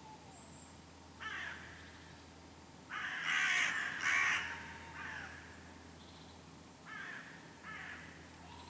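Eurasian red squirrel giving harsh, rasping alarm chatter in short bursts, loudest in a double burst a few seconds in: its alarm calling just after a goshawk attack.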